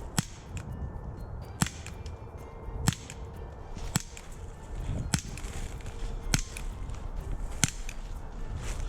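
Walther PPS CO2 blowback BB pistol firing a string of shots, a sharp crack about every 1.2 seconds, seven in all.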